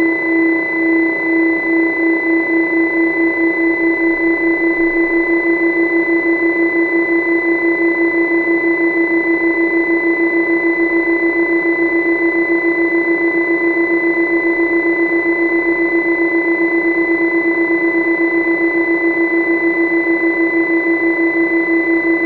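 A steady machine hum: a low tone with a fainter high whistle above it. It pulses in a fast, even beat that quickens over the first few seconds.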